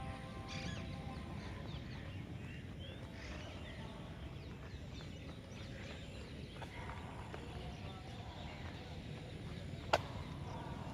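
Birds chirping over a steady low rumble, with one sharp click near the end.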